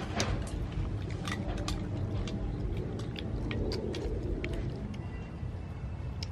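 Spoon clicking and scraping against a dessert bowl and a child chewing, with many short sharp clicks over a steady low rumble.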